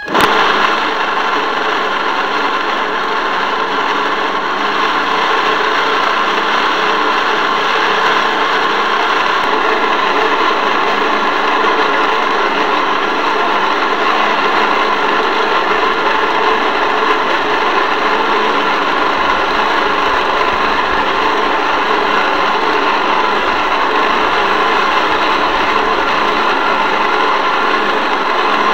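Boat motor running steadily at constant speed close to the microphone: a loud, even hum made of several fixed tones.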